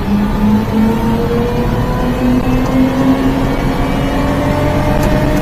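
Supercharged Daihatsu Hijet mini truck engine running under load, heard from inside the cab. Its pitch rises gradually as the truck gathers speed.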